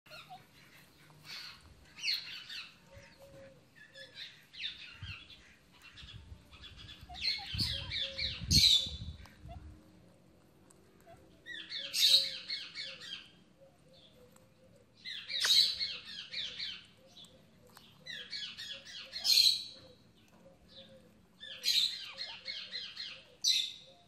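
Parrot giving harsh, rapidly pulsed squawking calls in bursts about a second long, repeated every three to four seconds, loudest around eight and twelve seconds in. A low rumble sits under the calls for a few seconds before the middle.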